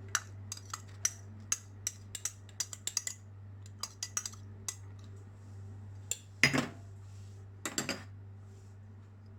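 Many light clinks and taps of utensils against dishes, scattered irregularly, with two louder, longer rattles about six and a half and eight seconds in, as chopped salad ingredients are put into a bowl. A steady low hum runs underneath.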